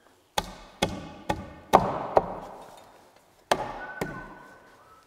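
A series of sharp wooden knocks, five about half a second apart and then two more, each ringing out in a large open wooden room: lengths of 4x4 handrail lumber being knocked about and set down on the floor.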